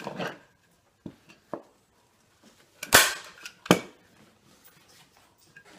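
Manual staple gun firing twice, about three seconds in and 0.7 s apart, as two sharp snaps driving staples through upholstery fabric into a chair seat. Softer clicks and fabric handling come before them.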